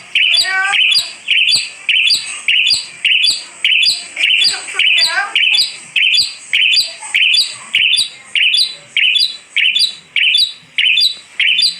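Asian pied starling (jalak suren) calling: a sharp, high note repeated steadily about twice a second, with a couple of lower, gliding warbles mixed in near the start and about halfway through.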